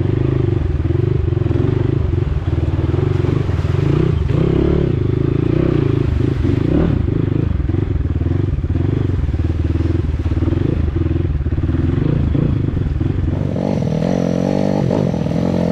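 Dirt bike engine running as the bike is ridden through deep mud. Its note shifts higher near the end.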